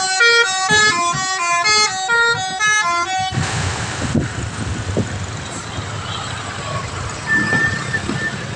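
Telolet multi-tone bus horn playing a quick tune of short notes, about four a second, in a reedy pianika-like voice. It cuts off about three seconds in, leaving a steady rushing noise of road and engine.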